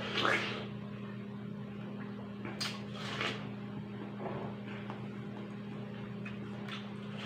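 Juicy watermelon being bitten into and chewed: a wet bite near the start and a couple more about two and a half to three seconds in, over a steady low hum.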